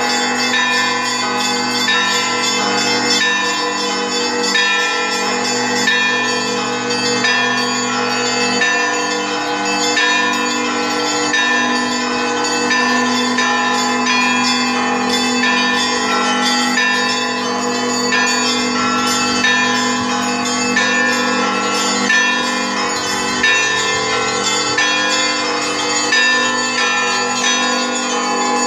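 Russian church bells rung together in a continuous peal, many bells of different pitches struck in an overlapping pattern, several strikes a second. A deep bell's low hum carries under the smaller bells.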